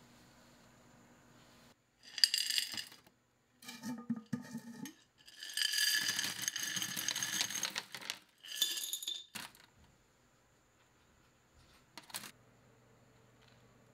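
Loose contents being shaken out of a clear plastic jar into a thin plastic clamshell tray, rattling against the plastic in several bursts, the longest lasting about two and a half seconds. Near the end come a couple of sharp clicks on the plastic.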